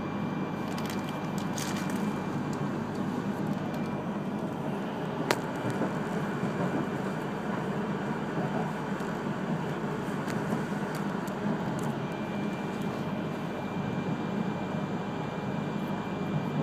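E3-series Shinkansen heard from inside the passenger cabin: a steady low running rumble of the train on the rails as it comes into a station. One sharp click sounds about five seconds in, and a faint thin whine is there at the start and again from about twelve seconds.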